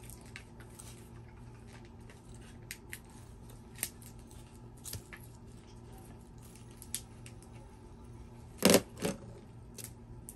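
Light clicks and taps of a plastic fidget spinner being handled, then two louder knocks in quick succession near the end as it is put down on a plastic lap tray.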